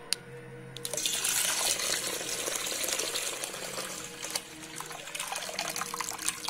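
Milk pouring from a plastic milk packet into a steel pot of milk, a steady splashing pour that starts about a second in, with a few small clicks.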